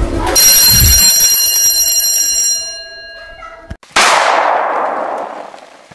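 Intro sound effects: a bright ringing tone with a low thump at its start, fading over about three seconds, then a sudden crash of noise about four seconds in that fades away.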